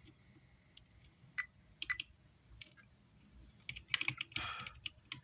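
Light clicks and taps from hands and tools working over an amplifier circuit board. They are scattered at first, then become a busier run of clicking and rustling about four seconds in.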